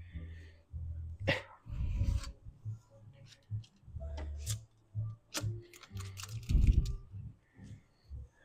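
Scooping cold cookie dough with a cookie scoop: a run of sharp clicks, scrapes and soft knocks of the metal scoop against the bowl and tray, with a quick flurry of clicks about six seconds in.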